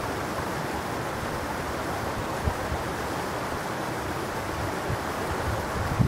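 Shallow, clear mountain stream babbling steadily over rocks and through a small riffle. A brief low thump comes about two and a half seconds in.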